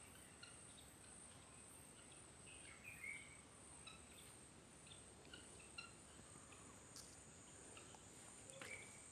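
Near silence: faint ambience with a steady high-pitched hum and a few faint, scattered chirps of small birds.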